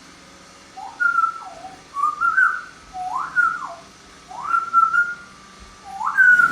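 Congo African grey parrot whistling a run of about five short whistled phrases, each sliding up in pitch and then back down.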